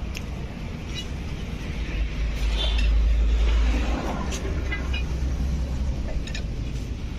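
Diesel engine of a Tata Hitachi hydraulic excavator running with a steady low rumble, growing louder for a couple of seconds in the middle, with a few light metallic clicks.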